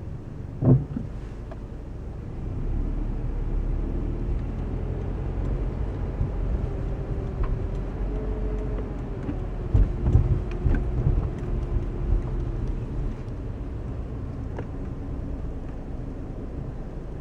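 Scion FR-S engine and road noise heard from inside the cabin while driving, swelling from a couple of seconds in and easing off later. There is a sharp thump about a second in and a few low knocks around ten seconds in.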